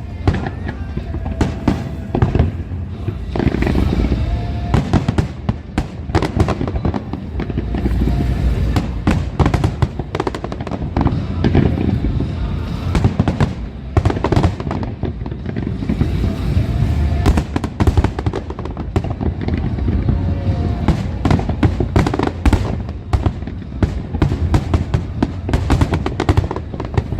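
Aerial fireworks display firing continuously: a dense, unbroken run of shell bursts, bangs and crackling.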